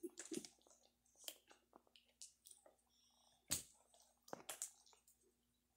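Slime squishing and squelching under a toddler's fingers: faint, scattered small wet clicks and pops, with two louder pops about three and a half and four and a half seconds in.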